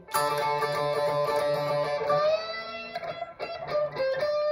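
Gold-top Les Paul-style electric guitar playing a blues-rock lead phrase through an amplifier. A long note rings from the start over a lower note. About three seconds in, a quick run of picked notes settles onto another held note.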